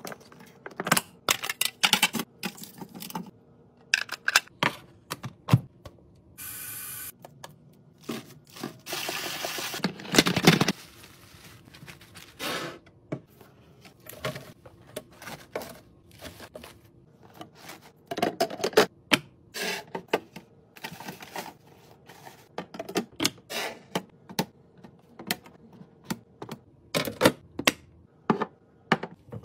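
Containers and packages being handled and set down while restocking a fridge: a long run of irregular light clicks, taps and clacks, with a couple of seconds of hissing noise about a third of the way in.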